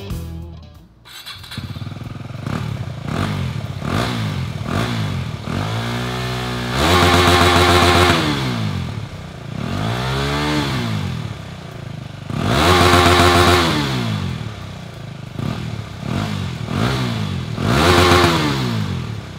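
KTM 250 Duke's single-cylinder engine through its original stock exhaust, starting about a second in and then free-revved on a stand. Short throttle blips alternate with four long revs that climb, hold high and drop back to idle.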